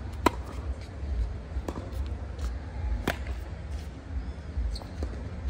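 Tennis balls struck by rackets in a baseline rally: a sharp, loud pock about a quarter second in and another about three seconds in from the near player's groundstrokes, with fainter pocks between from the bounces and the far player's shots. A steady low rumble runs underneath.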